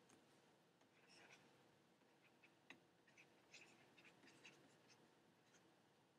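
Near silence with faint, short scratches of a stylus writing by hand on a tablet, a string of quick strokes between about one and five and a half seconds in.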